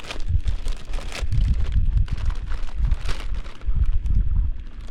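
Wind buffeting the microphone in uneven gusts, mixed with short rustles and clicks.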